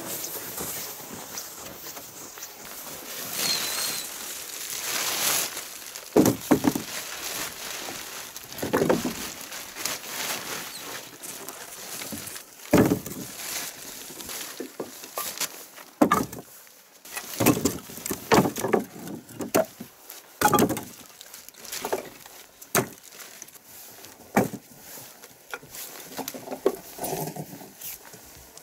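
Short pieces of firewood tossed one at a time into a plastic sled, a long irregular run of sharp wooden knocks on plastic. Before the knocks begin there are a few seconds of footsteps in snow and the sled dragging over it.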